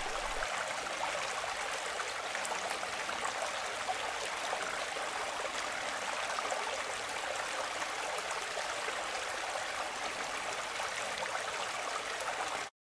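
Steady rushing of a small creek's flowing water, cutting off suddenly near the end.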